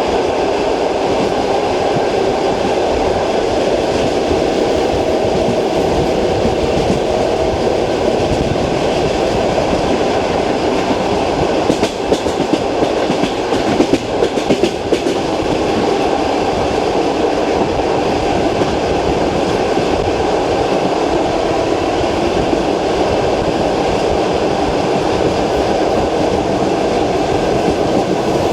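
Passenger train wheels running on jointed track, heard from inside the carriage: a steady rumble with the rhythmic clickety-clack of the wheels over rail joints. A short run of sharper, irregular knocks comes about halfway through.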